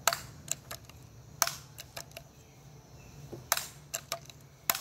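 Pump-action BB gun being pumped: a run of sharp mechanical clicks and clacks, with four louder clacks a second or two apart and smaller clicks between them.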